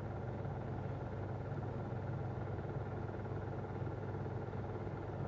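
Steady low hum under a faint even hiss, unchanging throughout.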